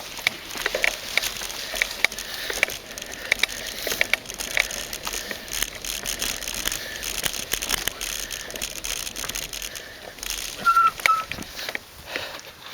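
Mountain bike ridden along a dirt trail: tyres running over dirt and roots and the bike rattling, with frequent small clicks and knocks. Near the end there are two short high squeaks.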